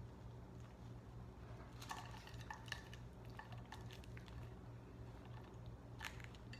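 Close-up chewing of a mouthful of sub sandwich topped with crisp shredded potato sticks: faint crackly crunches in clusters, about two seconds in, again a little later, and once more near the end, over a steady low hum.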